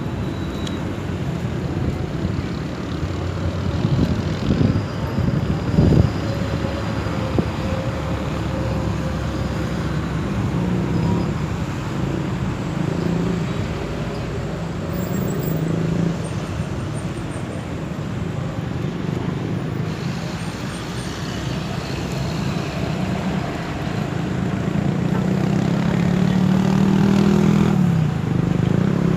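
Road traffic: a steady hum of vehicle engines and tyres, with a vehicle growing louder near the end.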